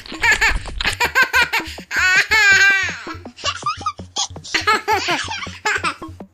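A baby laughing in quick repeated giggling bursts, with one long high squeal of laughter about two seconds in.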